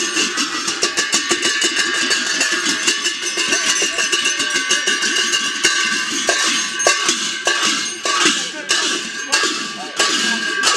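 Ringing metal percussion beating a fast, even rhythm for the dance. About halfway through it thins to slower, separate clashes. Voices call and chant over it.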